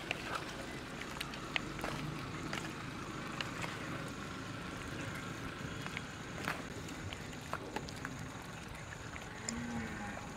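Thick mutton curry simmering in an aluminium pot as it is stirred with a plastic spatula: a steady hiss with scattered soft clicks and scrapes.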